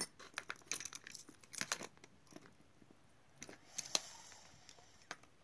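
Light clicking and small metallic jingling as tangled fishing lures, with metal spinner blades, hooks and a bead chain, are tugged apart in a plastic tackle box. The clicks come thick for the first couple of seconds, then a few more come near the end.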